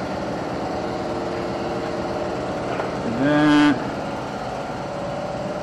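Small engine running steadily, with a short vocal sound from a man just after three seconds in.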